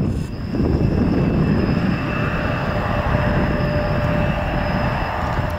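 Embraer ERJ-175 jet engines running, a steady loud rush of jet noise with an even, high whine held throughout; the level dips briefly just after the start.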